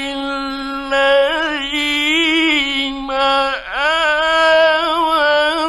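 A man's voice reciting the Quran in the melodic, drawn-out tajweed style. He holds 'khayrun' on a long ornamented note, breaks with a brief falling glide about three and a half seconds in, then starts 'lilladhina' on a new sustained note. This is an old radio broadcast recording.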